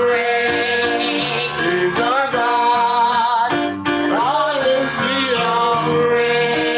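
Worship song playing: singing with vibrato and held notes over guitar accompaniment.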